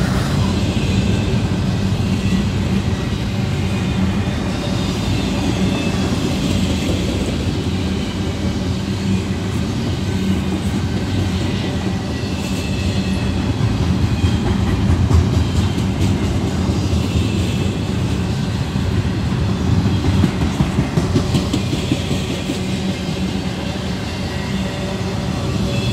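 Norfolk Southern intermodal freight train's double-stack container well cars rolling past close by: a steady rumble of steel wheels on the rails, with faint high squeals coming and going.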